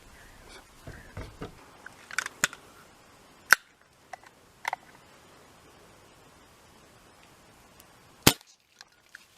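Crosman 1377 multi-pump pneumatic air pistol firing two sharp shots about five seconds apart, with fainter clicks in between.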